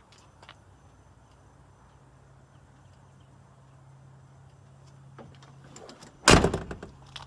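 Steel cab door of a 1996 Ford F-350 pickup swung shut: a few faint clicks as it moves, then one loud slam a little over six seconds in, with a short rattle as it settles.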